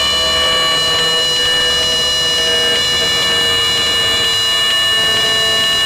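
Cyclone F5D pylon racer's Neu 1115 electric motor and 5.2x5.2 Graupner propeller on a static ground run at high throttle: a loud, steady high-pitched whine with several tones. The pitch drops slightly near the end as the 4S battery voltage sags under the heavy current draw.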